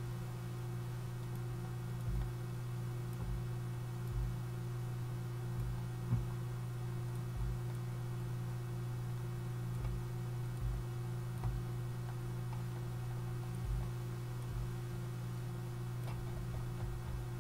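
Computer mouse clicking every second or so at an uneven pace, about a dozen soft clicks, over a steady low electrical hum.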